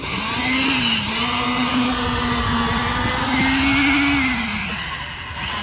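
A machine motor or engine running steadily under load, its pitch rising a little about three and a half seconds in, then dropping and easing off near the end.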